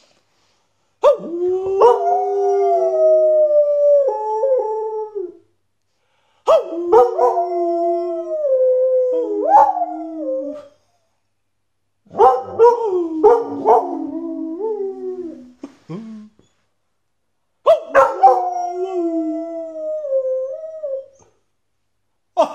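Border Collie howling in four long, wavering phrases that glide up and down in pitch, with short silences between them, and a man's voice howling along with the dog.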